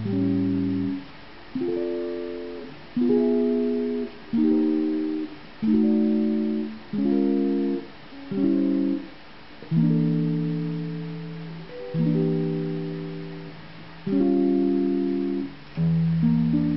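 Solo jazz guitar on a hollow-body electric: a slow series of chords, each struck and left to ring and fade, with short gaps between, the later chords held longer.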